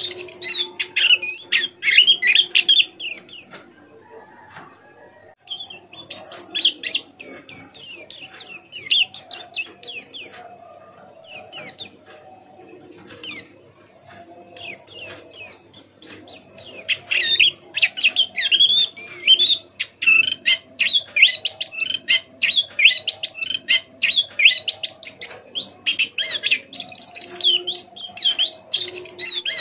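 White-eye (pleci) twittering in rapid runs of quick, high chirps: a young bird practising its song. The chattering thins out twice, a few seconds in and again near the middle, then returns full.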